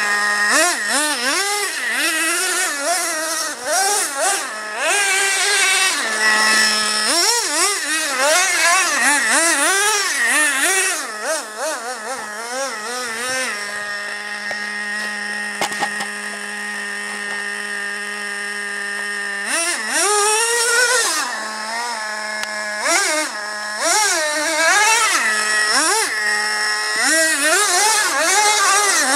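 Traxxas Revo RC monster truck's 2.5 cc nitro engine revving up and down in quick throttle bursts. About thirteen seconds in it settles to a steady idle for roughly six seconds, then revs in short bursts again.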